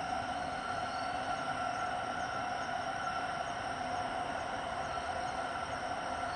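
Steady outdoor night ambience: a constant, even hum with no distinct events.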